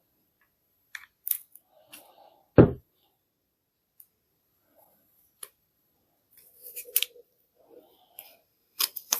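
Plastic casing of a burned-out 12 V tool battery pack being pried and handled open: scattered sharp clicks and scrapes, with one heavy knock a little over two seconds in.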